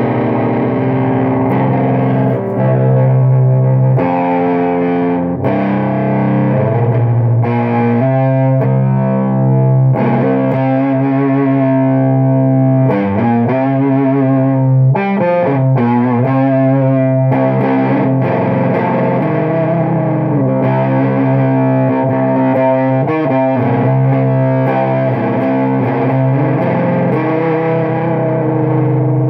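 Electric guitar played through an EnchanterFX Portal Fuzz Deluxe fuzz pedal into a clean Orange-style amp and 2x12 cabinet: distorted chords and notes ring for a second or several at a time, changing throughout. The pedal's fuzz control is being turned up from almost no fuzz.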